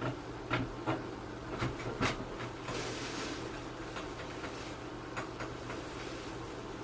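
Scattered light clicks and knocks of small objects being handled and moved about, with a brief rustle about three seconds in, over a steady low hum.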